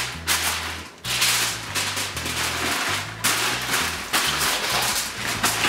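Aluminium foil crinkling and crackling in bursts as it is folded and crimped by hand into a pouch, over background music with a bass line.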